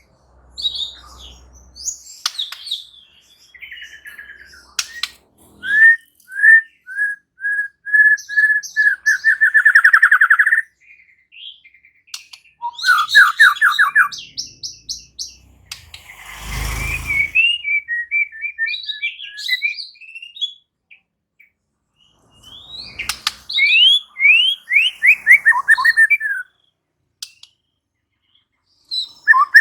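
White-rumped shama singing in separate phrases with pauses between them: a run of repeated clear whistled notes that speeds into a fast trill, quick sweeping notes, and a falling series of slurred notes. A short burst of noise about sixteen seconds in.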